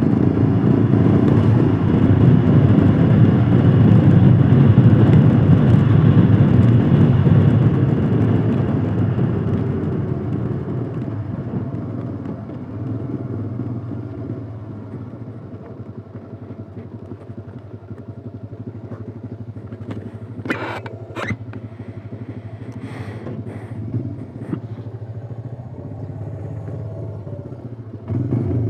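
Royal Enfield Himalayan Scram 411's single-cylinder engine running loudly under way, then easing off to a quieter, lower run about halfway through. Two sharp clicks come close together about two-thirds of the way in.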